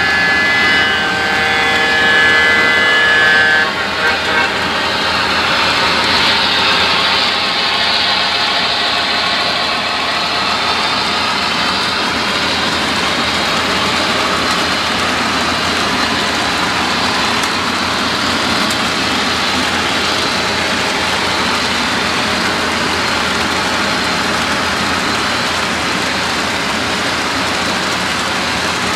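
Horn of an HO-scale Alco PA1 model diesel sounding a chord of several notes for about the first four seconds. Then the train of mail and express cars rolls past with a steady rushing noise of wheels on the rails.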